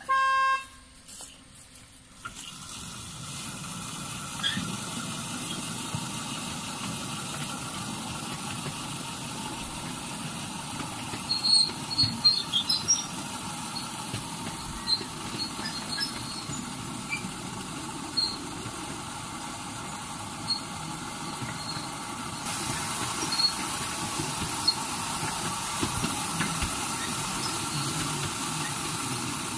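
A brief whistle-like tone, then about two seconds in a ride-on miniature park train sets off, its wheels running along the narrow-gauge track with a steady rumble and scattered clicks. The running gets louder about twenty-two seconds in.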